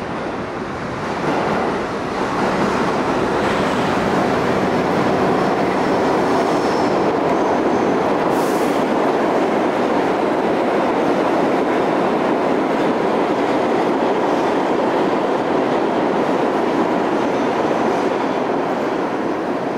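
New York City subway train passing through the station on a far track: a steady loud noise of wheels on rails that builds up about a second in and eases off near the end. A short high hiss comes about eight seconds in.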